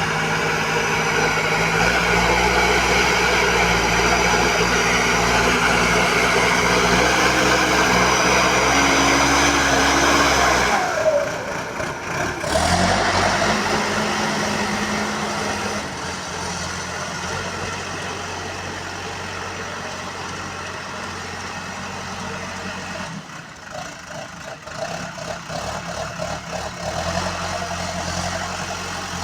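Diesel engine of a BULL HD 76 backhoe loader running steadily, its pitch and load changing: loud for the first third, then dropping suddenly to a lower, quieter note, with another dip in level near the end.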